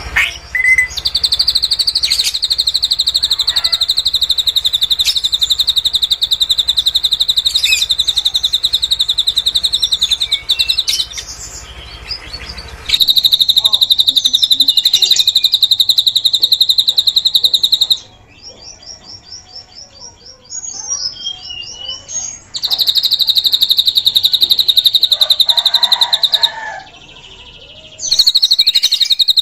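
Drongo (srigunting) singing its cililin imitation: four long, very fast high trills, each lasting several seconds. Between them come short stretches of softer, quick notes that fall in pitch.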